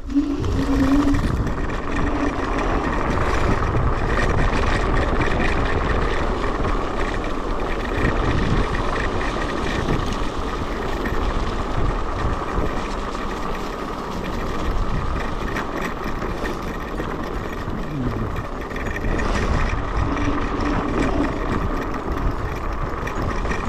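Electric scooter being ridden over a rough, bumpy track, heard from a camera on the rider. Steady wind rush on the microphone and tyre rumble, with a steady whine near 1 kHz.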